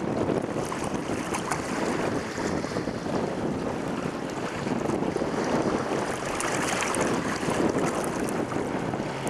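Strong wind buffeting the microphone over the steady rush and slap of choppy water along the hull of a Chrysler 22 sailboat under way in a blow.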